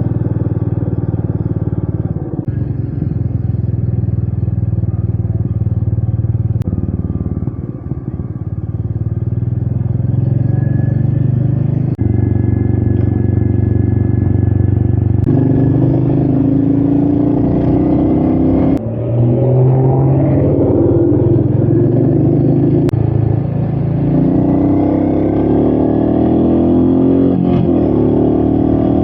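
Royal Enfield Meteor 350's single-cylinder engine running as the bike rides along, with wind noise. The engine note steps to a new pitch several times through the stretch, and there is a brief dip about two-thirds of the way in.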